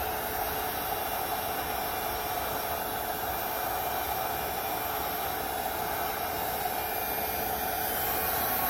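Heat gun running on its high setting, a steady blowing whoosh. It is melting the surface of a plastic patch on a kayak hull.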